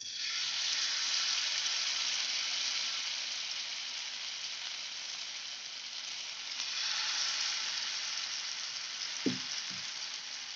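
Marinated chicken leg pieces sizzling as they shallow-fry in hot oil in a kadai. The sizzle starts suddenly and swells again about seven seconds in as a second piece goes into the oil, with two soft knocks near the end.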